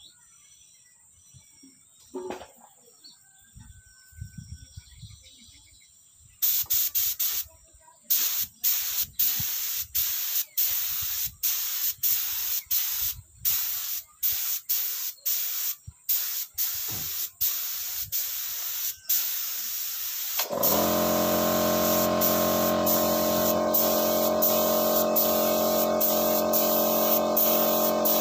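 Compressed-air spray gun spraying duco paint in repeated short hissing bursts, stop-start, beginning about a quarter of the way in. About three-quarters of the way through, a steady machine hum starts under the spraying.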